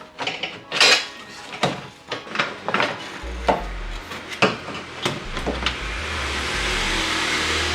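Metal tools and parts clinking and knocking, a dozen or so sharp clicks spread over the first five seconds, then a steady hiss that swells from about six seconds in.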